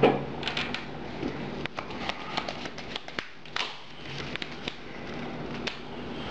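Trading cards being handled and set down on a table: scattered light clicks and taps at irregular intervals, over a faint steady low hum.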